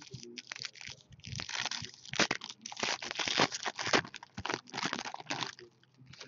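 Plastic crinkling and rustling in a quick irregular run of short rustles as trading cards are handled and sleeved, fading out near the end.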